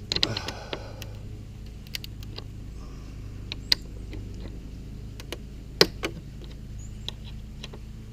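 Scattered light clicks and taps of an Allen key working a bolt out of a motorcycle's plastic body panel, over a steady low hum.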